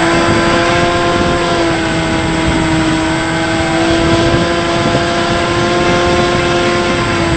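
Electric motor and propeller of a Bix3 RC trainer plane running at a steady pitch, a steady whine. It is heard from a camera mounted on the plane, with wind rushing over the microphone.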